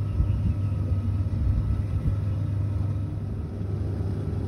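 Steady low rumble of a large motor yacht's engines while it manoeuvres, its propellers churning the water.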